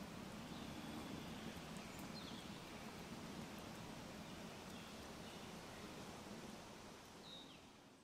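Faint night-time ambience by a campfire: a low steady rush, a few faint crackles, and two brief high chirps that fall in pitch. It fades out near the end.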